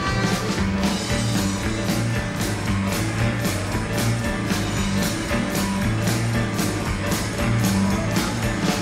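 Backing music with a fast, steady beat.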